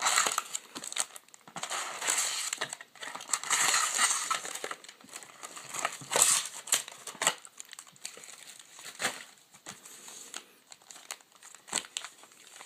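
Crinkling foil and plastic wrapping as a football card box and its packs are torn open and handled, in irregular rustling bursts with small clicks, heaviest in the first half and sparser later.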